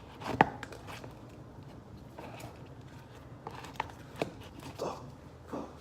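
Body filler and hardener being mixed in a tray with a spreader: scattered clicks and taps of the tool against the tray, the sharpest about half a second in and a few more around four seconds, with soft scraping between them.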